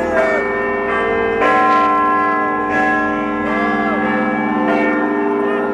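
Big Ben's clock bells striking midnight for the New Year, deep bell strokes ringing on into one another, the loudest about a second and a half in. A crowd whoops and cheers underneath.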